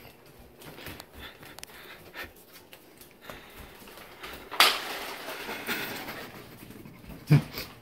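Kitchen handling noise: scattered clicks and knocks, a loud clatter of dishes in a dishwasher rack about four and a half seconds in, and another sharp knock near the end.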